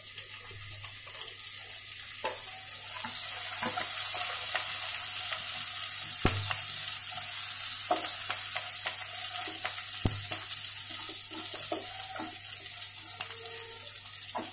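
Chopped green chillies sizzling in hot oil with cumin and fennel seeds in a kadai, the sizzle growing louder over the first few seconds. A wooden spatula stirs them and knocks against the pan a few times.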